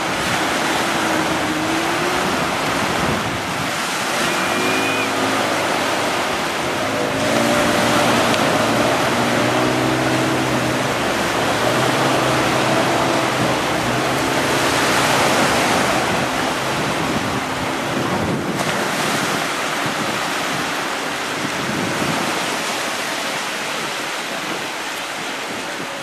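Steady rush of wind and sea water from a boat moving across choppy sea, with wind buffeting the microphone. A few short, faint pitched sounds come through in the first half.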